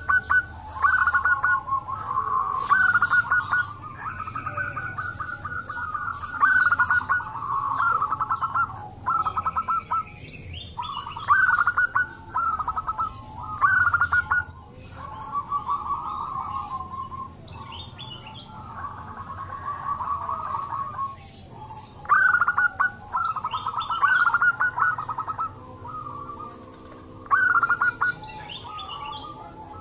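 Several zebra doves (perkutut) cooing together, answering and overlapping one another in repeated phrases of quick staccato notes, with a few faint higher chirps between them.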